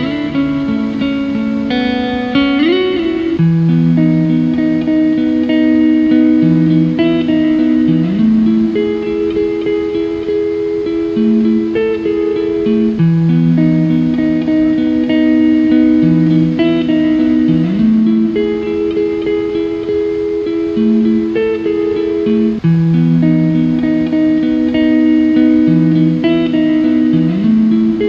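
Slow, calm instrumental music of long held notes that change every second or two, with a short upward sliding note several times.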